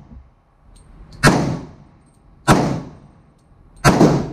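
Three pistol-calibre shots from a Glock 31 (.357 SIG) fired from a CAA Micro Conversion Kit carbine, about a second and a quarter apart, each a sharp crack with a short echoing tail in an indoor range lane.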